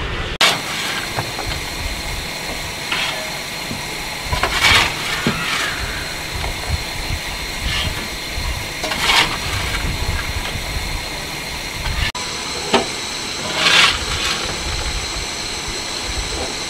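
1894 15-inch-gauge steam locomotive 'River Irt' standing and hissing steam. The steady hiss carries a high, thin whine, and louder surges of hiss come about every four and a half seconds.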